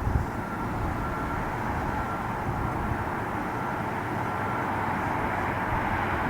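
Steady, even rumble of a distant aircraft, with a faint thin whine that stops about four and a half seconds in.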